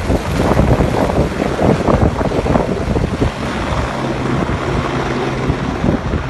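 Eurocopter AS350 B3 Ecureuil helicopter in flight, its rotor noise mixed with heavy wind buffeting on the microphone; a steady low hum comes in about halfway through.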